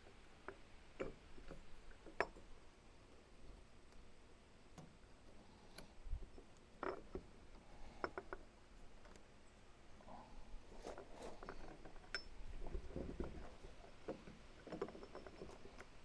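Scattered faint clicks and knocks of small parts and hand tools being handled while a part is worked back into place.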